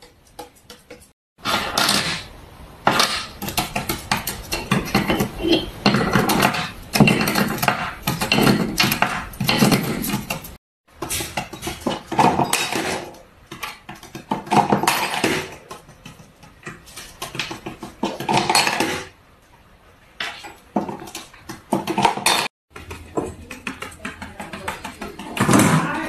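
Small plastic toys, including miniature bowling pins and a toy bin, clattering and clacking on a tabletop as a monk parakeet knocks and pushes them about. Irregular bursts of sharp clicks that cut off abruptly a few times.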